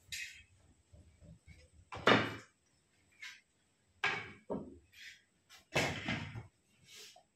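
Wooden bow limbs and a bow handle set down on a tabletop, a series of knocks and thuds. The loudest comes about two seconds in, followed by a cluster of knocks about four seconds in and another near six seconds.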